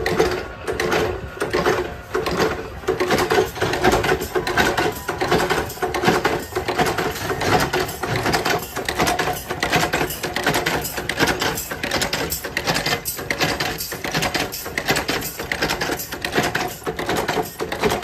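Spoon-making machinery in a steel spoon factory: fast, uneven metallic clattering and clicking, with a steady hum underneath.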